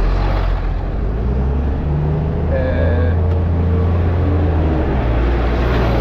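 City bus engine running close alongside, a steady low rumble, with a brief high squeal about two and a half seconds in.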